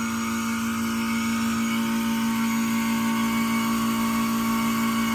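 2001 Goodman CPLE30 2.5-ton heat pump running with a steady hum, its outdoor fan motor dead and the fan not turning. The owner expects the unit to trip on high pressure soon.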